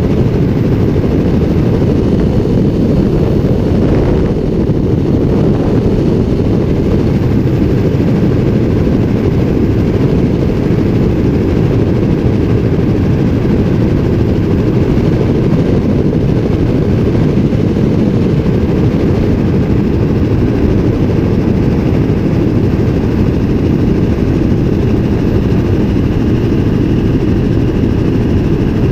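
Helicopter in steady flight, heard close up: loud, unchanging rotor and engine noise.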